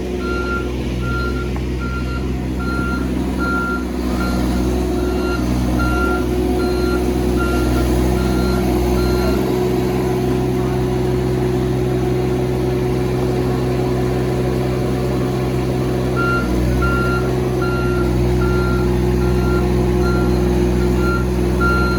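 Excavator's diesel engine running steadily while its travel alarm beeps about once a second. The beeping stops for about ten seconds midway, then resumes.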